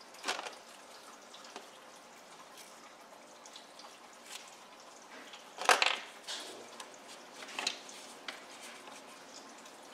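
Handling noise of small plastic toys being picked up and rubbed with a tissue: a few scattered rustles and light knocks, the loudest about halfway through.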